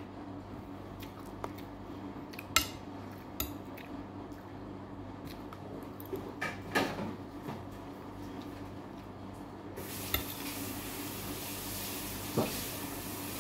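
Metal spoon clinking and scraping against a plate of rice in a scatter of sharp clinks, the loudest about two and a half seconds in, with a cluster of them midway. A steady hiss comes in near the end, over a constant low hum.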